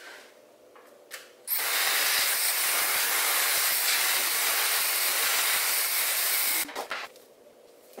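Zuvi Halo hair dryer running: a steady airy hiss that starts suddenly about a second and a half in and cuts off abruptly about five seconds later.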